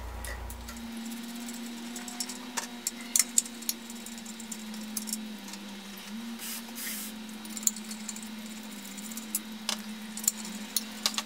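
Scattered metal clicks and clinks of a wrench working the bolts that hold the pump's motor to its bracket, with a short scrape about seven seconds in and a steady low hum underneath.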